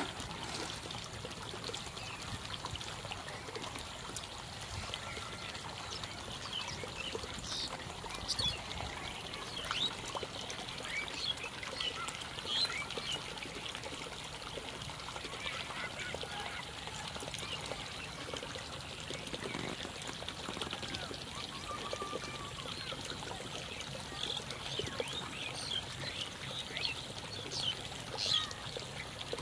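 Birds calling outdoors: many short, scattered chirps and calls over a steady background hiss.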